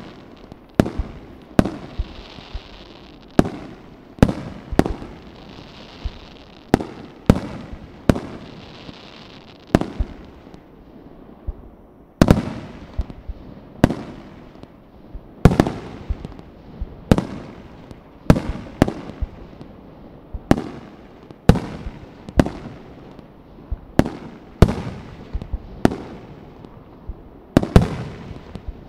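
Fireworks display with aerial shells bursting in a steady run of sharp bangs, about one or two a second, each trailing off in a rolling echo. There is a short lull about ten seconds in.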